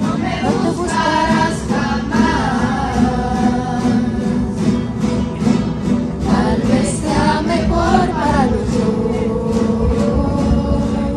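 A rondalla, a group of young players singing together over strummed acoustic guitars in a steady rhythm, with a long held note near the end.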